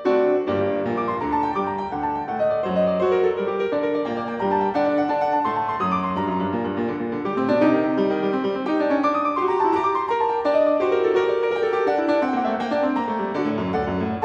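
Background solo piano music, a steady stream of notes over chords.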